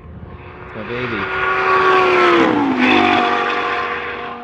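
High-performance sports car passing at speed: the engine note builds to its loudest about two to three seconds in, its pitch drops as it goes by, and then it fades away.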